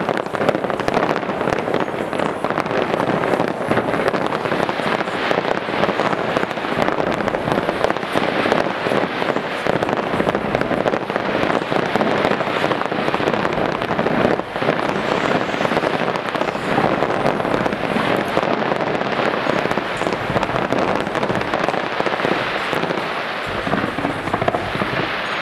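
Aerial fireworks display: a continuous, dense barrage of bangs and crackling from many shells bursting at once, with no let-up.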